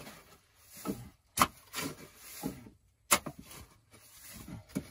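Wooden timbers knocking and scraping as they are shifted by hand, with two sharp knocks about a second and a half and three seconds in, amid lighter scrapes and thuds.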